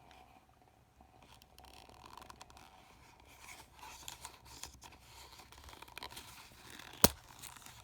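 Faint rustling and scraping as a plastic Ziploc bag and a leather knife holster are handled, with one sharp click about seven seconds in.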